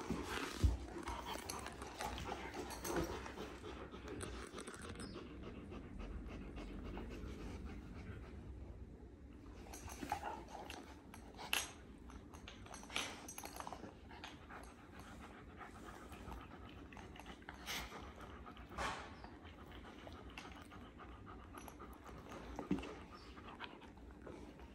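Two year-old Kangal dogs play-fighting, panting steadily, with a handful of sharp clicks scattered through.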